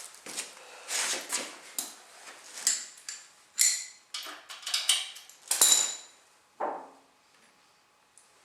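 Wrench clinking and clanking against the engine mounting bolts and tractor frame as the bolts are tightened, in irregular metallic knocks, some ringing briefly. The last clank comes about two-thirds of the way through.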